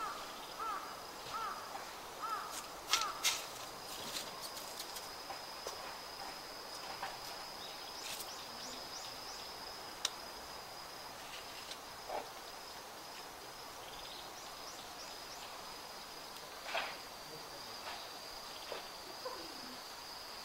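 Outdoor ambience: a steady high-pitched insect trill, with a bird repeating a short chirp about every 0.7 seconds until about three seconds in. Scattered bird chirps follow.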